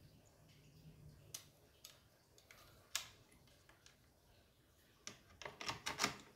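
Light clicks and taps of plastic and metal parts being handled and fitted into a Stihl MS 210 chainsaw's housing while the carburettor goes in: a few separate clicks, then a quick run of them near the end.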